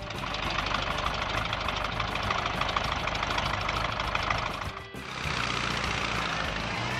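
A truck engine running, laid over background music; it drops out briefly about five seconds in.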